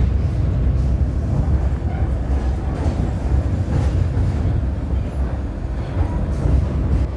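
Passenger train running along the track, heard from inside the carriage: a steady low rumble with a few faint knocks from the wheels.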